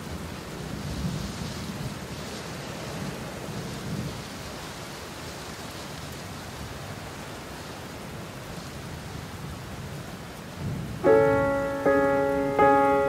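Steady rain with low rumbles of thunder. About eleven seconds in, music starts over it: a chord struck roughly every three quarters of a second, loud against the rain.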